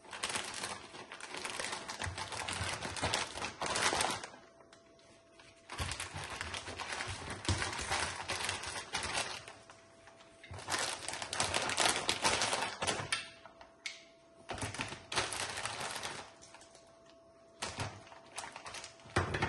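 Plastic candy-bar packets and a clear plastic sheet crinkling in bursts of a few seconds as they are handled, with short quiet gaps between them.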